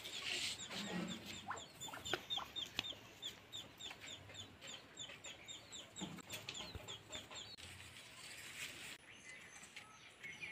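Chicks peeping: a fast run of short, high, falling peeps, about four a second, faint, stopping about three-quarters of the way through.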